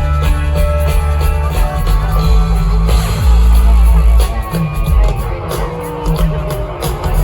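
A live rock band playing an instrumental passage of the song, loud, with a heavy bass line under guitar and drums.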